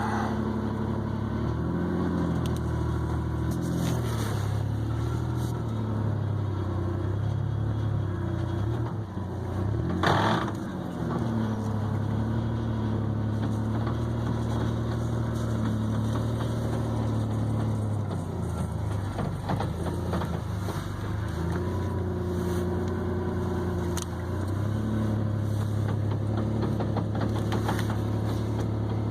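1989 Ford Ranger's engine and Mitsubishi FM146 manual transmission running in gear, the engine speed rising and falling several times as the truck tries to pull free of ice, with a short loud noise about ten seconds in. The drivetrain sounds pretty bad; the owner is not sure whether it is an input bearing.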